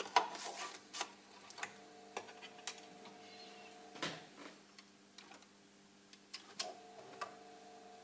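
RF501C floppy disk drive running under a disk drive tester program: scattered light clicks and ticks over a steady motor hum. The hum stops about four and a half seconds in and starts again about two seconds later.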